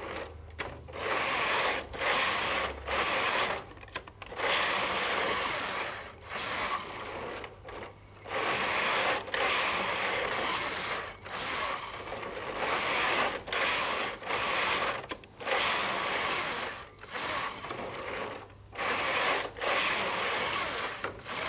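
Brother KH-950i knitting machine carriages pushed back and forth across the needle bed: a rattling, whirring run of needles and cams with each pass. About ten passes, each one to three seconds long, with short pauses between them, as the lace carriage and the knitting carriage take turns working lace and knitting rows.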